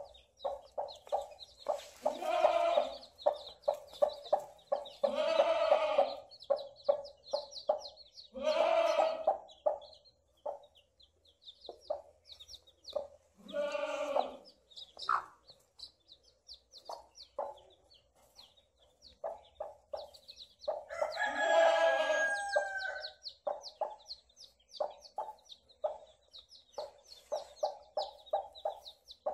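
A broody hen clucking, with about five longer drawn-out calls, while many newly hatched chicks peep rapidly and almost without pause.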